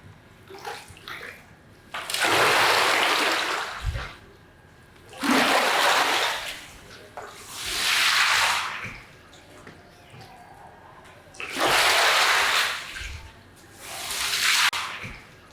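Water sprayed onto a carpet in five separate bursts of one to two seconds each, with dripping and small ticks between the bursts.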